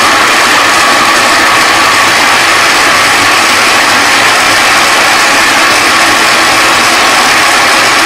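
Small electric food chopper's motor running steadily at full speed, its blade whipping fine semolina and water into a thin batter.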